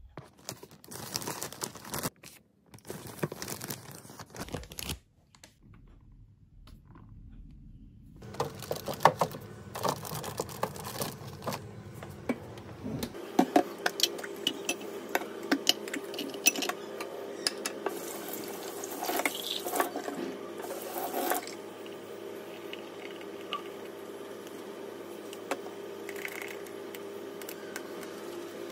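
Plastic baby milk bottles, teats and rings knocking and clattering in a stainless steel sink as they are washed by hand, with many sharp clicks. From about halfway through, a steady rush of running water lies beneath them.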